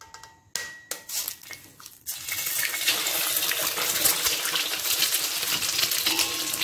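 A few light clicks and taps, then about two seconds in an egg goes into hot oil in a steel wok and starts frying with a sudden, dense, steady sizzle and spatter.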